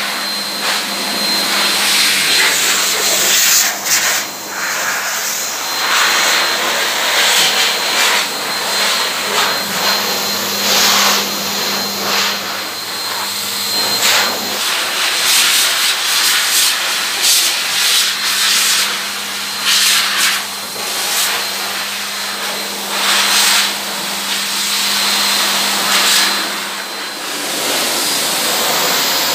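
Pet grooming blower dryer blowing air through its hose onto a dog's coat: a steady motor hum and faint high whine under a loud rush of air that swells and dips as the nozzle is moved over the fur.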